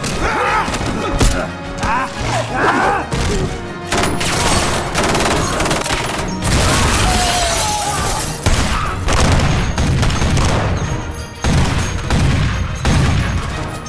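Action-film gunfight mix: rapid gunfire and booms over a film music score.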